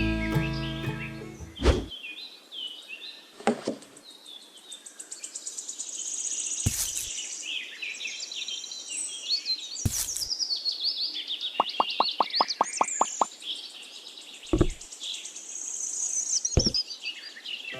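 Birds chirping and twittering, with a few sharp knocks scattered through and a quick run of about eight taps around the middle.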